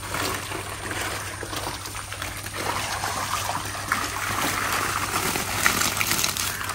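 Water running and splashing steadily, like a pour or outflow into a fish tank or pond.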